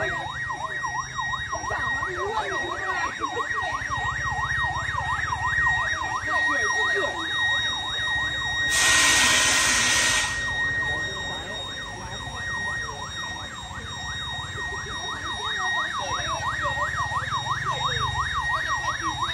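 Police motorcycle siren in a fast yelp, rising and falling about four times a second over a steady high tone. About nine seconds in, a loud hiss lasting under two seconds covers it.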